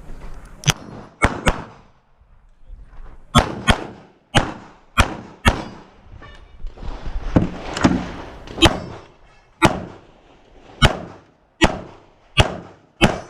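Rapid pistol fire from a CZ Shadow 2 during a practical shooting stage: about fifteen sharp shots, some in quick pairs and others spaced about a second apart.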